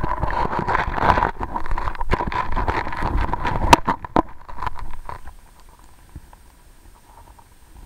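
Creek water heard through an underwater camera: a hissing rush full of small clicks and knocks, with one sharp knock near the middle, dropping to a faint hiss about five seconds in.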